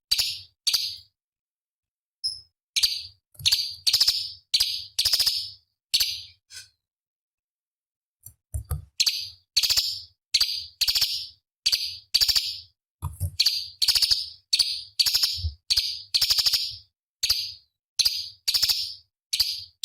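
Cucak cungkok leafbird calling in a rapid series of short, harsh, high-pitched notes, about two a second, broken by two short pauses.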